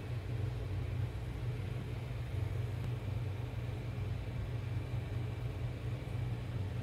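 Steady low rumble of background noise, unchanging and with no distinct events.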